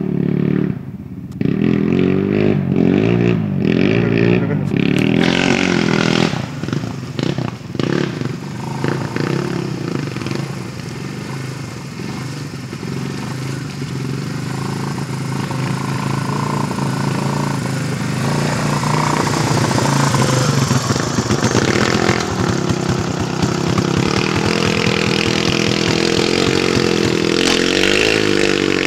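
Single-cylinder four-stroke quad (ATV) engines revving up and down as they work through deep mud in reverse. There is a spell of clattering knocks between about five and nine seconds in.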